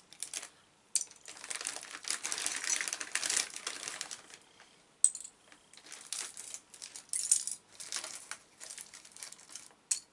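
Loose plastic LEGO bricks clattering and clicking against each other as they are handled in a heap, in uneven bursts with a few sharper single clicks.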